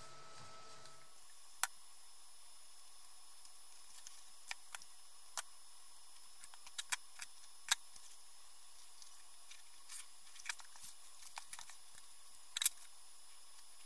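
Scattered small sharp clicks and ticks over a faint steady hiss, from paper trim and craft pieces being handled and pressed into place. The loudest clicks come about eight seconds in and near the end.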